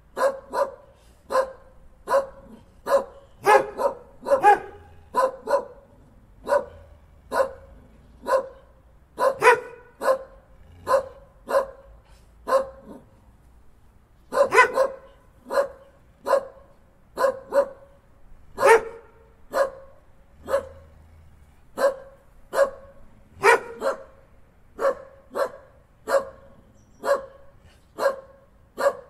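Dogs barking in a long run of short barks, about one or two a second, with a couple of brief pauses.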